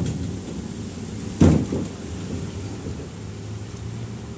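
Steady low running rumble heard from inside a moving public-transport vehicle, with one sharp knock about a second and a half in.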